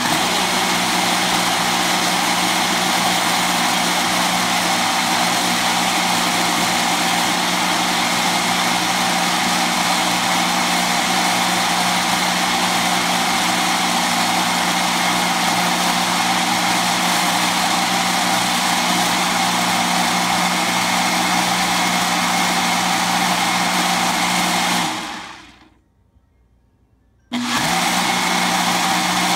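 Nutri Ninja Duo blender motor running steadily at high speed, blending a thick fruit smoothie on its timed smoothie program. About 25 seconds in it winds down and stops for a moment, then starts again suddenly as the program moves to its next stage.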